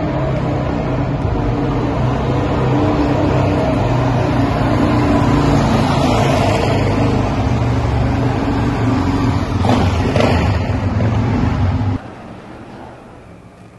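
Motorcycle engine running as the bike rides down a concrete railway tunnel toward the listener, echoing off the walls. It grows louder as it nears, is loudest about ten seconds in as it passes, and then cuts off suddenly.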